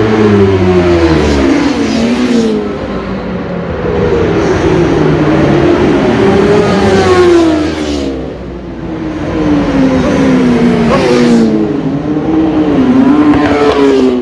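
Superbike racing motorcycles at full throttle down the straight, their engine notes climbing and dropping back at each upshift as several bikes pass one after another. The sound eases off about eight seconds in, then builds again as another bike approaches near the end.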